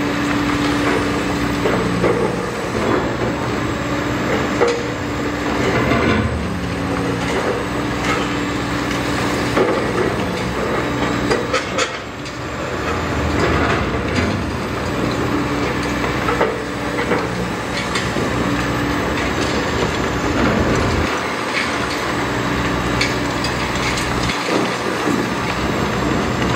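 Hydraulic demolition excavator's diesel engine running under load while its demolition shear crushes concrete, with many sharp cracks, knocks and clattering debris over the steady engine tone.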